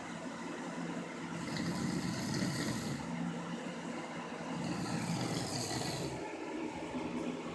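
A domestic cat snoring in its sleep: slow, even breaths with a raspy buzz, about two breath cycles.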